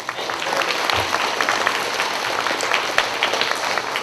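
Audience applauding: many people clapping in a dense, steady stream.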